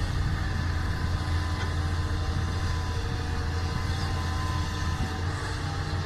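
Doosan excavator's diesel engine running steadily with a deep, even hum.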